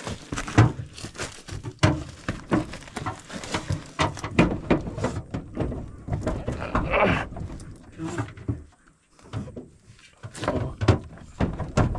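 Repeated metal knocks and clanks as the heavy drum of a combine's bean header is worked loose and pulled out, with grunts of effort from the men straining at it.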